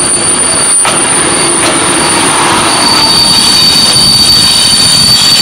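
ČD class 363 electric locomotive and its train of coaches rolling slowly past at close range on the next track, a loud, steady rumble of steel wheels on rail.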